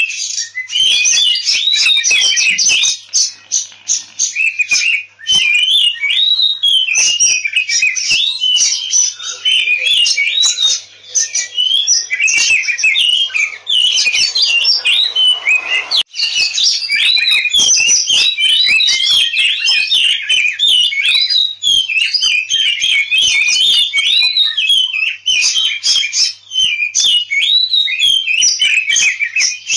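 Oriental magpie-robin (kacer) singing a fast, unbroken stream of varied whistles and chirps with only short pauses. This is the agitated fighting song ('ngobra tarung') that a bird gives when challenging a rival.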